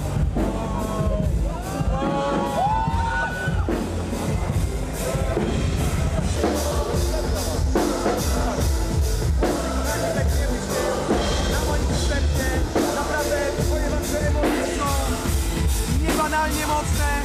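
Pop music with singing over a steady drum-kit beat.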